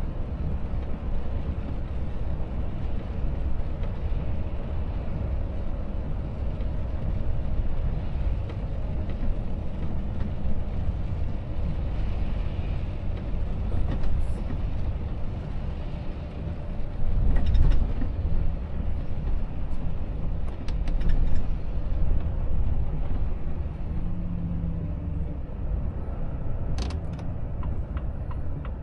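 Cab interior of a Volvo FH truck on a wet road: a steady low rumble of engine and tyre noise as the truck slows down. There is a brief louder swell about two-thirds of the way through, and a quick run of clicks near the end.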